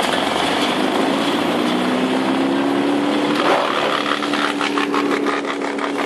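Bandit 18-inch wood chipper running empty with a steady, loud mechanical noise. A hum in it climbs slowly in pitch over the first few seconds and then holds steady, and a run of light ticks comes in near the end.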